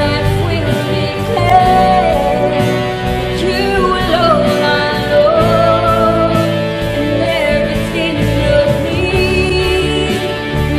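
Worship song: a solo voice singing a wavering melody over instrumental backing with a steady beat.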